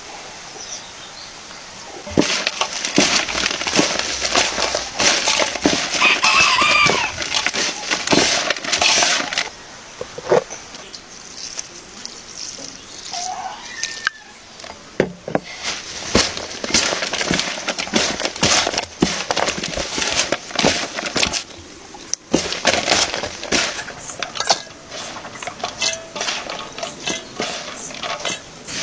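Hands tossing and squeezing a salad of grated carrot, onion and herbs in a large metal basin: dense, crackly rustling in long spells, with a quieter stretch midway.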